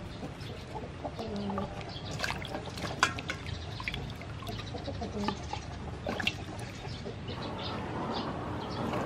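Water splashing and sloshing in a stainless-steel bowl as green onions, chilies and limes are rubbed clean and lifted out, with a few sharp knocks against the bowl about three and six seconds in. Chickens cluck briefly in the background.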